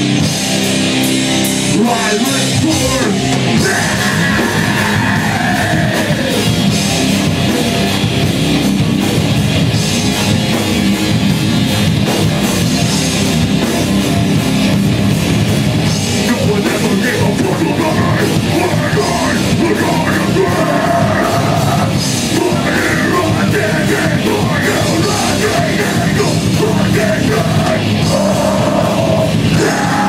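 A live heavy metal band playing loud: distorted guitars and bass over fast drumming, with vocals coming in and out.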